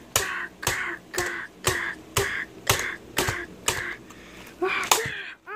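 A child making punching sound effects for a toy fight: about eight quick hissing 'psh' hits, roughly two a second, each opening with a sharp click, then a short voiced cry near the end.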